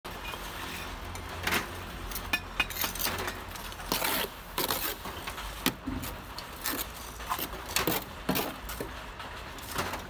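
Bricklayer's steel trowel scraping mortar and clinking against bricks, in irregular short scrapes and taps as bricks are laid.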